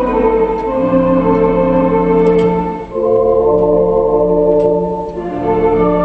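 Theatre organ playing slow, sustained chords. There are brief breaks between phrases, about three seconds in and again about five seconds in.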